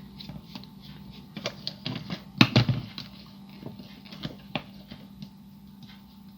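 Small clicks and taps of a plastic toy figure and small tools being handled on a work surface, with a louder knock about two and a half seconds in, over a faint steady hum.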